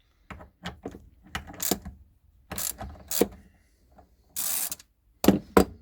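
Irregular metallic clicks and clinks of hand tools and carburettor parts as the float-chamber bolt and bowl are worked off a Honda GX160 carburettor, with a short rasping scrape about four and a half seconds in and two sharp knocks near the end.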